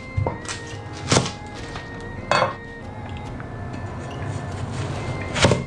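A steel cleaver chopping through an onion and knocking on a bamboo cutting board: a few separate, unevenly spaced knocks, the loudest near the end, over soft background music.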